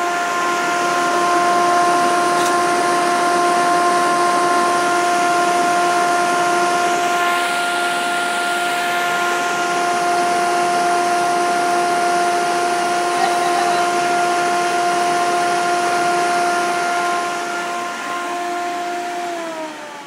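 Homemade air raid siren, an electric fan motor spinning inside a cardboard concrete-form tube with holes cut around it, wailing loudly at a steady pitch over a rush of air. Near the end the pitch starts to fall as it winds down.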